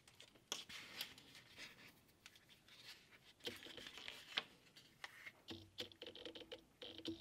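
Thread being pulled through shell cordovan leather while hand saddle-stitching: a series of short scrapes and rustles, coming faster near the end, with a faint squeak as the thread draws tight.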